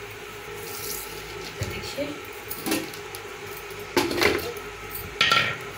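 A few separate knocks and clinks as a stainless-steel mixer-grinder jar is handled and set onto its plastic motor base. The motor is not running.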